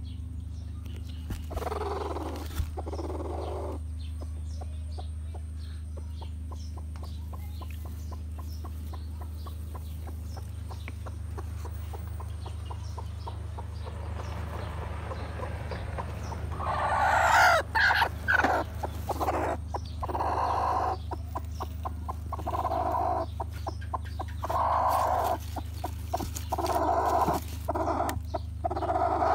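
Broody hen clucking on her nest: two calls a couple of seconds in, then from about halfway a steady run of short repeated clucks, one or two a second, over a low steady hum.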